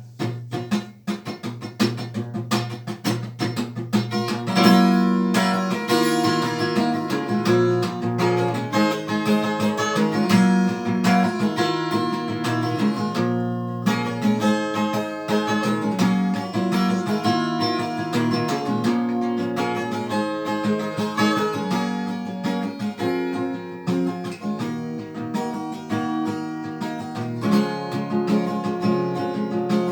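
Instrumental break of a song: acoustic guitar strummed and picked, getting fuller about four seconds in.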